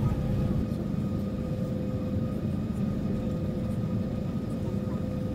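Steady cabin rumble of an Airbus A340-300 taxiing, its four CFM56 engines at idle, with a faint steady whine over the low roar.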